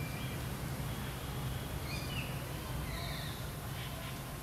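Outdoor woodland ambience: a steady low hum with a few faint, short high chirps spread through it.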